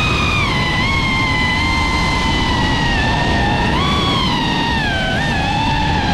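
Racing quadcopter's electric motors and propellers whining, the pitch gliding up and down with the throttle, over a steady rush of wind.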